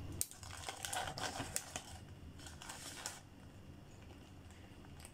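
Crinkling of a dipping-sauce cup's peeled foil lid and the paper wrapping as they are handled, in short crackles for about three seconds, then only faint room noise.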